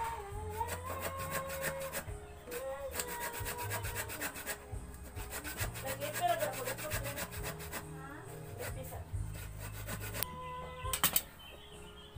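Hand saw cutting into a small block of wood with repeated back-and-forth rasping strokes.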